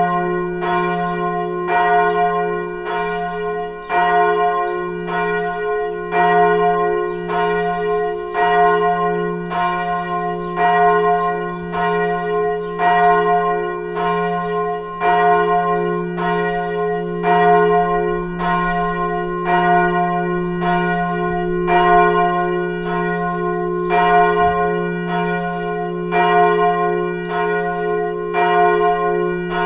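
Church bell ringing: evenly spaced strokes, about one a second, each ringing on with many tones over a low hum that sustains between strokes.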